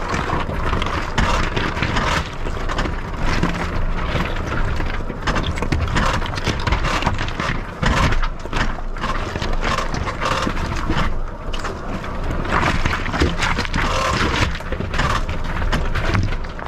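Rivian R1T electric pickup driving slowly over a rough, rocky dirt trail: a steady crunch and rumble of tyres on rock and gravel, with frequent knocks and clatter from the truck's suspension and body.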